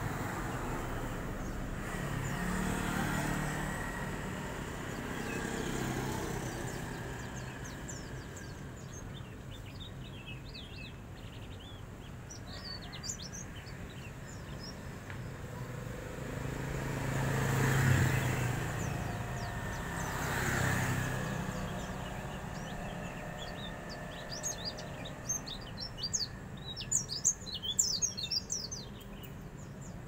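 A small caged songbird twittering in quick, high chirps, scattered at first and in a dense run near the end: the fine, rapid chirping that bird keepers call ngeriwik. Passing cars swell and fade underneath, loudest around the middle.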